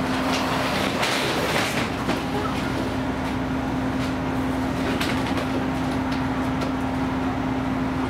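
Plastic poultry crates clattering, knocking and scraping as they are pushed and stacked, most busily in the first two seconds, over a steady mechanical hum.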